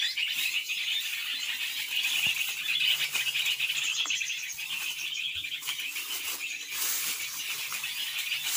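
Dry bamboo leaves and twigs rustling and crackling as someone moves through thick leaf litter, over a steady high-pitched buzzing hiss.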